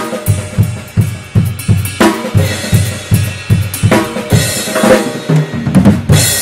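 Drum kit played in a steady beat, with an 18-inch Krest Fusion thin crash cymbal struck about every two seconds. Near the end a quick fill on the toms leads into a last crash that rings on.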